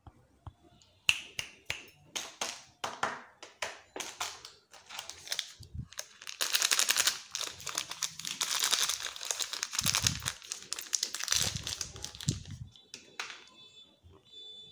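Plastic candy wrapper crinkling as fingers work it open: first a run of sharp separate crackles, then several seconds of dense continuous crinkling, with a few dull bumps from handling.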